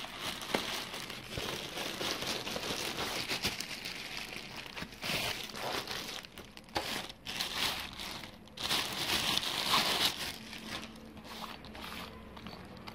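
Foam packing sheet and plastic wrapping crinkling and rustling as they are handled and pulled out of a box, in irregular bursts, loudest about nine to ten seconds in.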